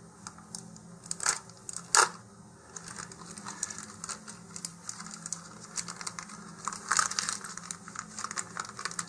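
Clear plastic packaging bag crinkling as it is slit with a hobby knife and the parts inside are pulled out, with a few sharp ticks, the loudest about two seconds in, and a burst of crinkling near the end.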